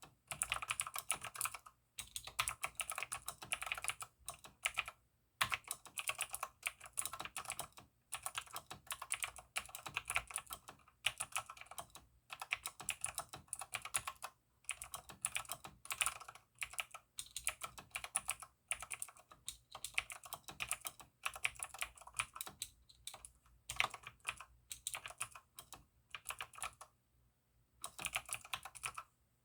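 Typing on a mechanical keyboard with lubed Outemo Blue clicky switches: fast runs of sharp keystroke clicks, broken by short pauses and a longer pause near the end.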